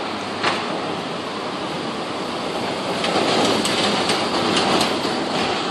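Wuppertal Schwebebahn suspended monorail train pulling into the station, its wheels running along the overhead steel rail. The running noise grows louder about three seconds in as the cars pass close by, with a few sharp clicks.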